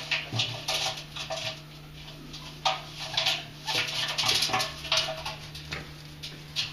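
Two domestic ferrets play-wrestling inside a front-loading washing machine drum: irregular scuffling and scrabbling against the drum, mixed with short, quickly repeated animal vocal sounds.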